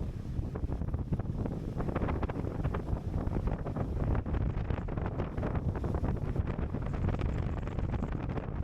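Wind buffeting the microphone: a dense, irregular low rumble with gusty flutter throughout.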